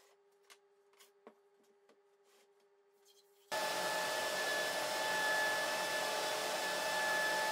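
A few faint clicks and knocks, then about halfway through a Shaper Origin handheld CNC router, with a dust extraction hose attached, starts abruptly and runs steadily: a loud, even rush of air with a high whine.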